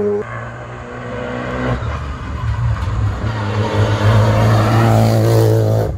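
Rally car engine approaching at speed, getting louder from about two seconds in, its note rising as it accelerates near the end.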